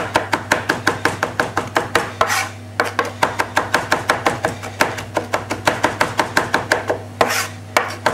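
Kitchen knife rocking through a pile of parsley on a chopping board, the blade tapping the board in a steady run of about five strokes a second as the parsley is chopped fine. The run is broken twice by a brief swish, about two seconds in and again near the end.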